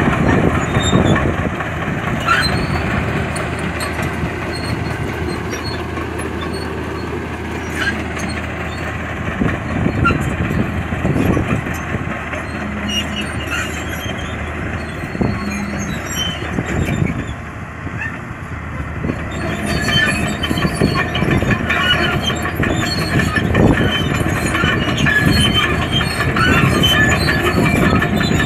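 Caterpillar D6D crawler dozer running, its diesel engine working under load while the steel tracks clank and clatter. The sound dips about two-thirds of the way through as the dozer moves off, then grows louder again as it comes back.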